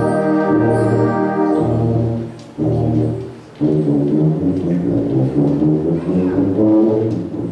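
Brass band playing in a large hall: held low brass chords die away briefly twice, then the full band comes back in with a busier passage about three and a half seconds in.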